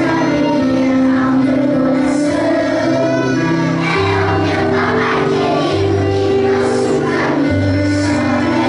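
A group of young children singing a Portuguese song along with a recorded musical backing track.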